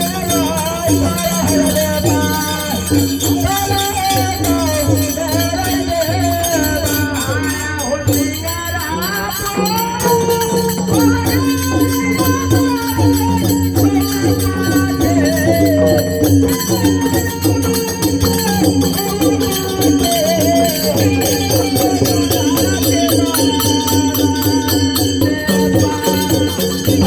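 Folk music with a steady, quick beat, shaken rattle-like percussion and a wavering melody line over it.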